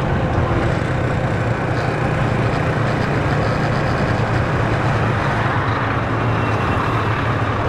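Motorcycle engine running steadily at low speed while riding, with road noise.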